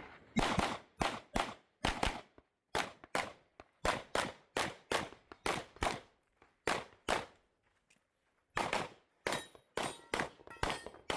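A Glock 17 Gen 5 9mm pistol firing a fast string of shots, many in quick pairs, during a timed practical-shooting stage. There is a pause of about a second in the middle before the shooting resumes.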